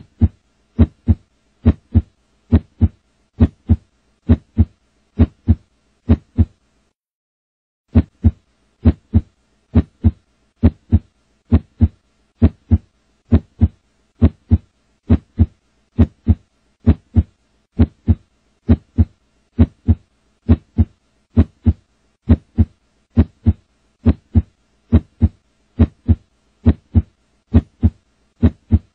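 A slow, steady heartbeat: paired lub-dub thumps a little under once a second. It stops for about a second roughly seven seconds in, then resumes at the same pace.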